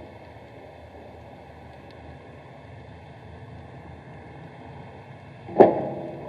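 Steady muffled underwater noise picked up by a submerged camera, with one sharp knock a little over five seconds in.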